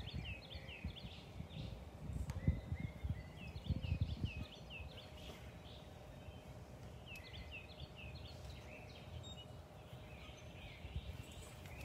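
A songbird singing a phrase of about six quick falling notes, repeated three times a few seconds apart, over steady outdoor background noise. A low rumble comes in about two seconds in and fades by the middle.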